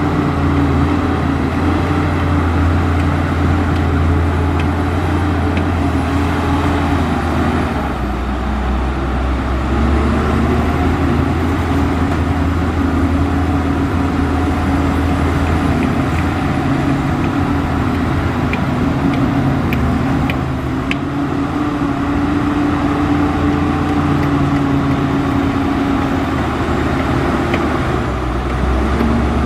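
Diesel engine of heavy earthmoving machinery running steadily. Its pitch dips about seven seconds in, picks back up a couple of seconds later, and dips briefly again near the end.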